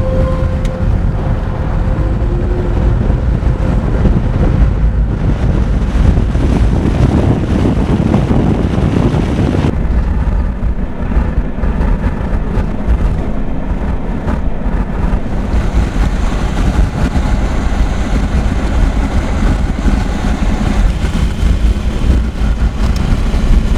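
Road and wind noise from a moving car: a steady low rumble that changes abruptly about ten seconds in, when the hiss above it drops away.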